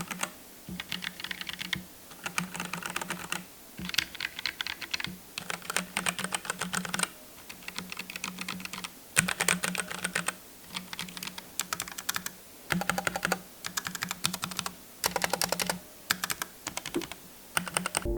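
Typing on a Keychron K1 V4 low-profile mechanical keyboard: quick runs of light key clicks, coming in bursts of a second or so with short pauses between.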